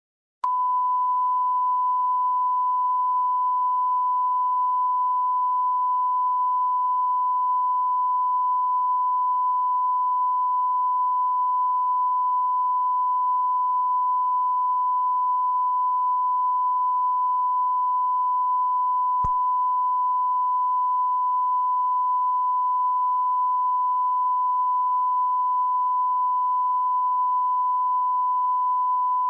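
Steady 1 kHz test tone, a continuous pure beep of the kind recorded at the end of a VHS tape. It starts abruptly about half a second in, and a single click cuts through it about two-thirds of the way along.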